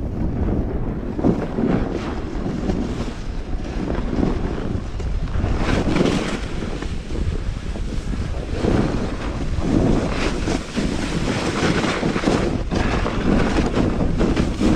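Wind rushing over a GoPro microphone during a snowboard run, with the board scraping over crusty snow in repeated surges every second or two.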